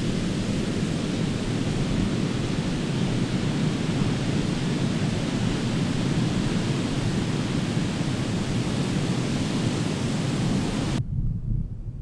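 Ocean surf breaking close by: a loud, steady, dense wash of noise. About eleven seconds in it cuts off abruptly, leaving only a low wind rumble.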